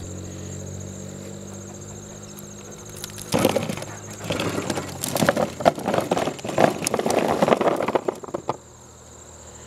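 Small potatoes tumbling out of a wicker basket into a plastic tub, a run of knocking and rattling that starts a few seconds in and lasts about five seconds.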